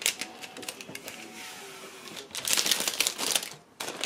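Thin protective plastic film being peeled off a glass 3D-printer build plate: a run of light ticks and crackles as it lifts away, then a louder crinkling rustle of the loose film from about two and a half seconds in.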